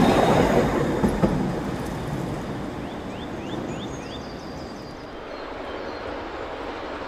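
Coaches of a narrow-gauge train rolling past on the rails, loud at first and fading away over the first few seconds. A short run of high chirps follows.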